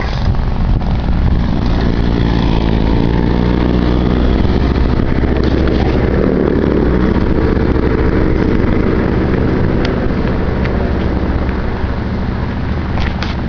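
A motor vehicle's engine passes close by, growing louder towards the middle and then fading. It runs over a constant heavy low rumble.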